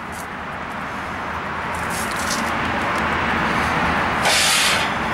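Steady background noise, a low rumble with hiss that swells slowly, with a short burst of brighter hiss about four seconds in.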